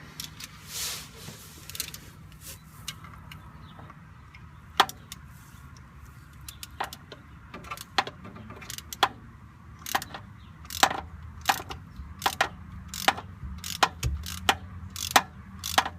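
Hand ratchet driving in a bolt on a drive shaft center support bearing, its pawl clicking sharply on the back-swings, sparse at first and then about two clicks a second toward the end. The bolt is threading in without binding.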